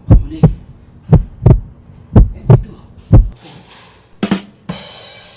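Low, heavy thumps in pairs, about one pair a second, in a heartbeat-like rhythm that stops about three seconds in. Near the end come a click and a steady hissing swish.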